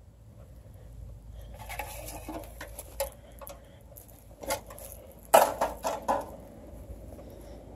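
Footsteps rustling and crunching through dry brush, leaf litter and twigs, with scattered sharp cracks of snapping twigs and a quick run of several loud cracks about two-thirds of the way through.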